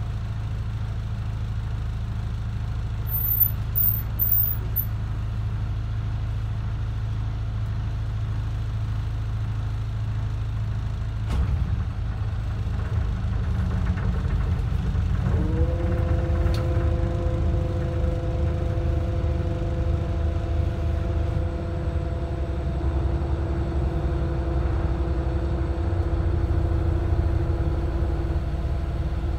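Motor yacht's engine running at low speed with a steady low drone. About eleven seconds in there is a click and the drone changes, and from about halfway a steady hum of several tones joins it and holds.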